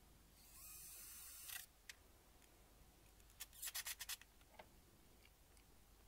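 Faint sounds of a cordless drill screwing a wooden panel onto a box: a hiss lasting about a second, then a quick run of sharp clicks.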